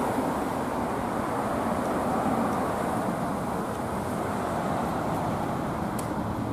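Steady traffic noise: cars and SUVs driving past on a busy street.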